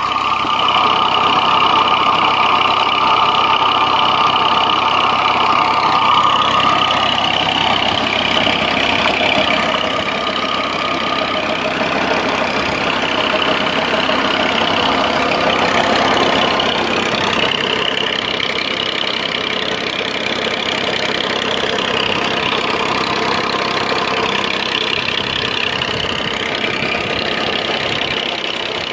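Double-flywheel diesel engine running steadily, driving a borewell pump through a flat belt and a right-angle gear head.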